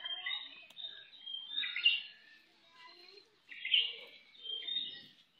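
Birds chirping in short, high bursts, a call every second or so, loudest about two seconds and four seconds in.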